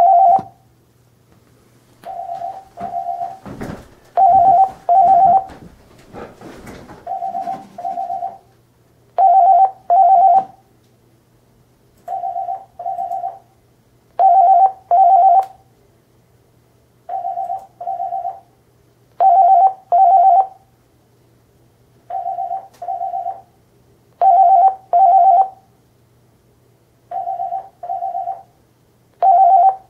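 Office telephone ringing with an electronic double ring: two short steady beeps, then a pause, repeating about every two and a half seconds, with the pairs alternating between louder and softer. A spell of clatter and rustling sits under the rings a few seconds in.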